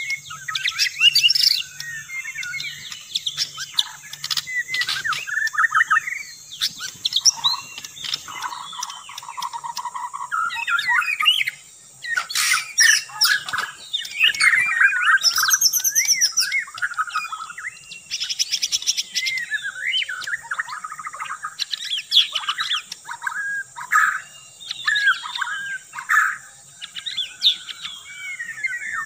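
White-rumped shama singing a long, varied song of rich whistles, trills and rapid chattering phrases, with only short pauses between phrases. A steady high-pitched whine sits behind the song.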